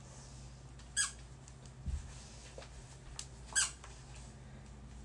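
A dog's squeaky toy squeaking twice: two short high squeaks, about a second in and again at about three and a half seconds, with a soft thump between them.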